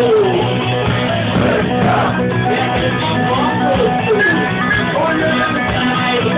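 Rock band music led by guitars, playing continuously with sliding melodic lines over a steady accompaniment.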